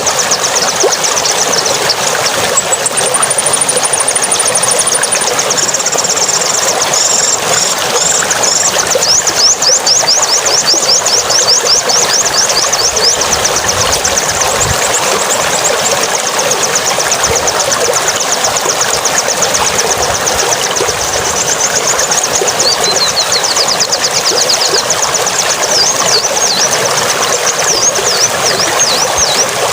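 A songbird singing fast, repeated high chirps and trills, with brief pauses, over a loud, steady rushing noise.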